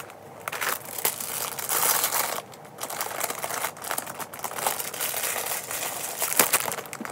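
Plastic wrappers on squishy toys crinkling and rustling on and off as the packaged toys are picked up and set down, with a short lull about two and a half seconds in.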